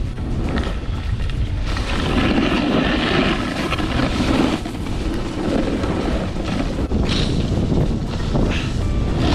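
Wind buffeting the microphone of a handheld camera on a moving snowboarder, with the steady hiss and scrape of a snowboard sliding over snow, louder from about two seconds in.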